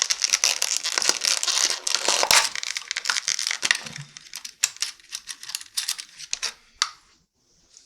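Plastic packaging crinkling and tearing as it is handled and opened, loudest in the first few seconds. It gives way to scattered light clicks and rustles that die away near the end.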